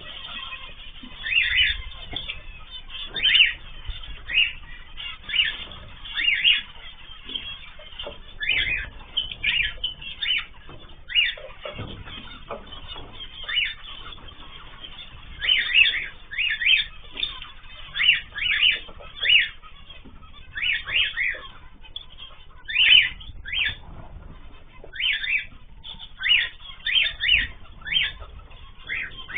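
Caged ornamental pet birds calling: short, sharp chirps and squawks, many in quick irregular succession.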